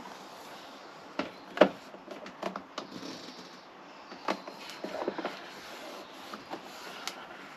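Plastic parts of a caravan fridge's control panel being handled and pressed into place: scattered clicks and knocks, the sharpest about a second and a half in.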